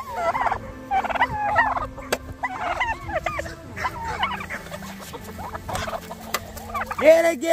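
A flock of chickens clucking and calling in short, repeated pitched calls, with a sharp click about two seconds in.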